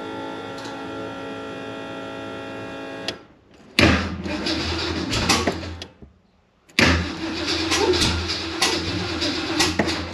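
An electric fuel pump whines steadily as it primes, then stops about three seconds in. The starter then cranks the Ford engine twice, for about two and then three seconds. The engine does not catch, because the spark plug wires are on in the wrong rotation (Chevrolet-style instead of Ford firing order).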